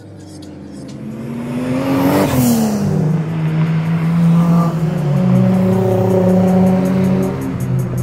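Sports car engines running hard as cars pass: one revs up and sweeps past close about two seconds in, its pitch dropping as it goes by, then further engines hold steady at high revs.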